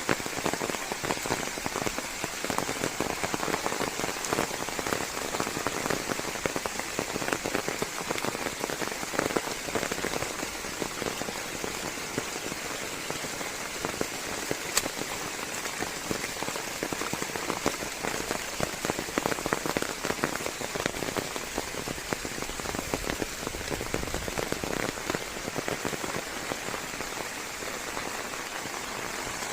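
Steady rain falling on forest leaves: an even hiss dense with many separate drop hits, and one sharper tick about halfway through.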